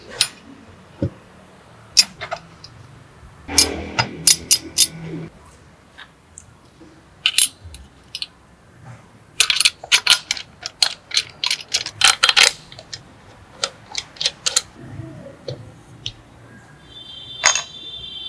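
Irregular sharp clicks and knocks of small hard parts being handled, with a quicker run of clicks about ten to twelve seconds in.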